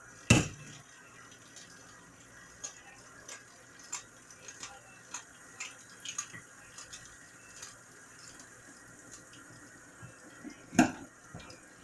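Kitchen tap running in a steady stream into a stainless-steel sink while vegetables are rinsed under it, with scattered light knocks and clatters of the produce and hands against the steel. Two louder knocks stand out, one just at the start and one near the end.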